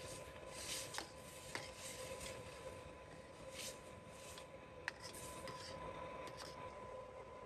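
Cooking utensils scraping and rubbing against a pot or bowl in repeated short swishes, with a few sharp clicks, over a faint steady hum.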